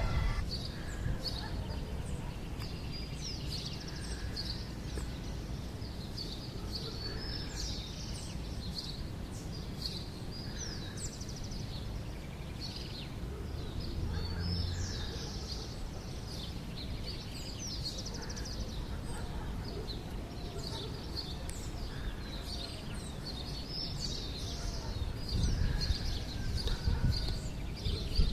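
Several birds chirping and singing outdoors, with many short, quick calls and trills going on all the time, over a steady low rumble.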